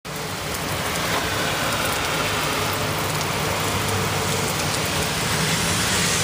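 Steady rain falling, a constant even hiss, with a faint low hum underneath.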